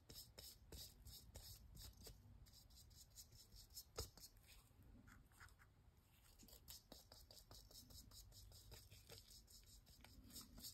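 Faint, soft strokes of a foam brush spreading adhesive over a plastic ornament, about two or three a second, with a short lull around five seconds in and one sharp click about four seconds in.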